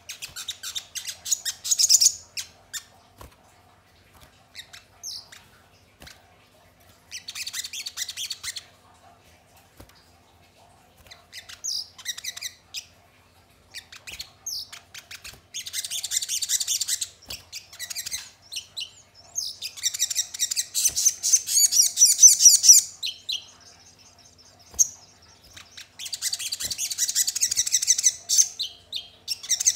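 Sogon, a sunbird, calling in repeated bursts of rapid, high-pitched chirping with single chirps between them; the longest burst lasts about three seconds, around twenty seconds in.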